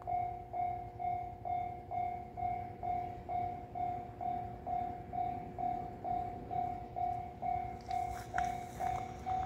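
Japanese level-crossing warning bell sounding a steady electronic ding about twice a second, warning of an approaching train. Near the end, the first faint noise and clicks of the oncoming freight train come in under it.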